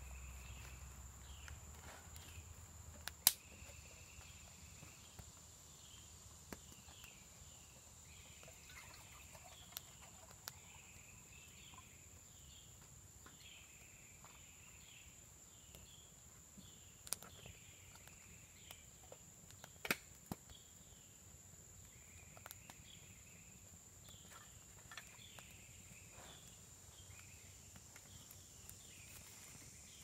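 Faint woodland ambience: a steady high-pitched insect drone with runs of short repeated chirps over it, broken by a few sharp clicks, the loudest about three seconds in and again near twenty seconds.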